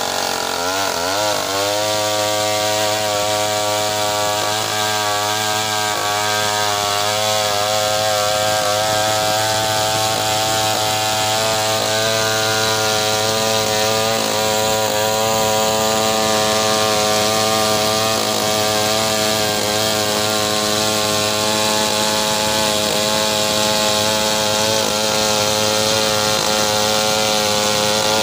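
Large two-stroke Motoyama chainsaw ripping lengthwise through a meranti log into planks. The engine swoops in pitch as it bites into the cut about a second in, then holds a steady full-throttle tone under load.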